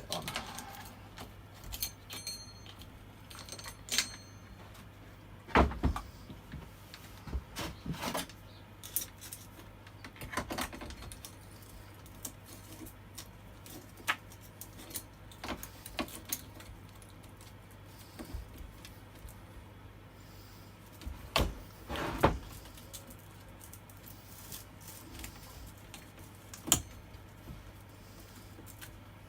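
Intermittent metallic clinks, rattles and knocks of chainsaw parts and hand tools being handled during a strip-down, a few with a brief metallic ring. The loudest knocks come about six seconds in and again about twenty-two seconds in.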